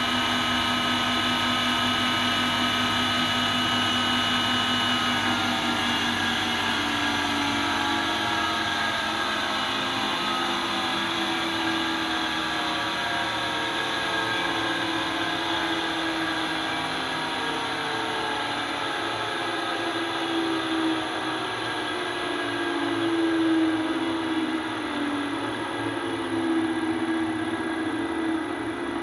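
3 hp three-phase induction motor running on a variable frequency drive, its hum and whine sliding slowly down in pitch as the drive's output frequency is turned down, with steady high tones underneath.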